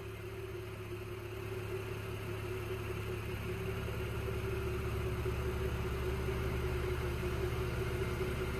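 Lexus IS350 F Sport's 3.5-litre V6 idling: a steady low hum that grows a little louder over the first few seconds.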